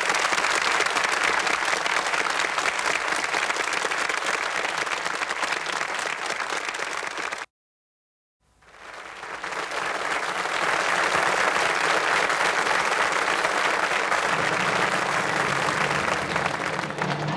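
Studio audience applauding after a band number. The applause cuts off suddenly about seven seconds in, leaving a second of silence, then fades back in. A low rumble joins near the end.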